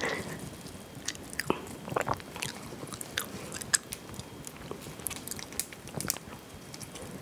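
Crisp, irregular cracks and snaps of mala crayfish shells being broken and peeled by gloved hands, mixed with close-miked chewing.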